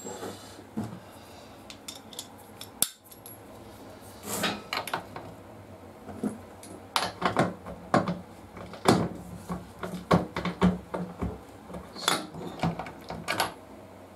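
Metal hand tools clinking and knocking in short, irregular taps, some with a brief ring, as a wrench and socket are worked while the rear axle nut is snugged up.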